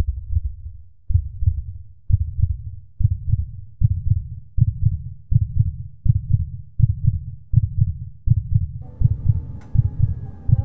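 Heartbeat sound effect: low double thumps, about one a second at first and gradually quickening. Near the end a faint steady hum joins in under the beats.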